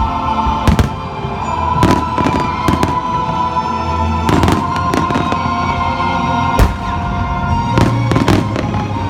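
Aerial fireworks bursting in a string of sharp bangs at irregular intervals, about eight of them, over music with steady held notes.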